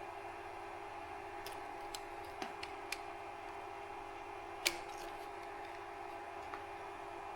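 A few light clicks and snaps from small wires and connectors being handled, the sharpest about four and a half seconds in, over a steady background hum.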